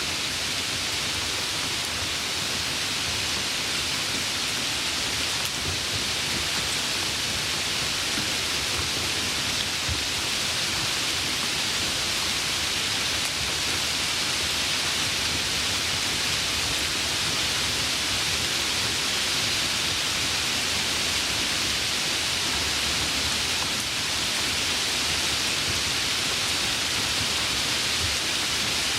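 Steady, even rain hiss, with the faint patter of drops on a surface.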